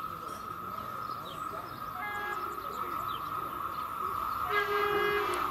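Distant approaching train, growing steadily louder, sounding its horn in short blasts: one brief blast about two seconds in and a longer one near the end. A steady high hum runs underneath.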